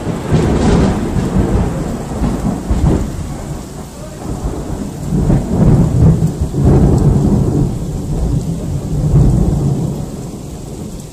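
Loud thunder: a clap breaks just before, then a long deep rumble rolls on in swells and dies down near the end.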